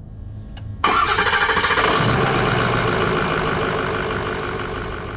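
An engine bursts into loud running about a second in, then slowly fades.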